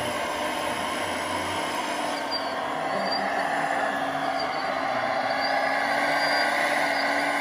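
Radio-controlled Liebherr hydraulic excavator's pump and motors whirring steadily as the arm lifts a bucket of dirt and swings to dump it, with a few faint short squeaks; the whir grows slightly louder about three seconds in.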